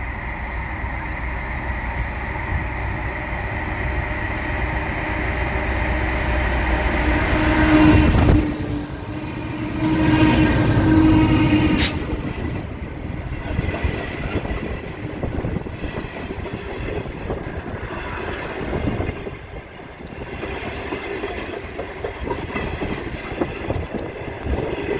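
Two diesel-electric locomotives approach with a rising rumble and blow their horn, a short blast and then a longer one near the middle, as they pass. The long stainless-steel passenger carriages then roll by close, with a rattling clatter of wheels over the rails.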